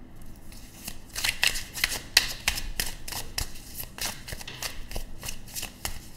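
A tarot deck being shuffled and handled by hand: a quick, irregular run of papery card flicks and snaps, starting about a second in.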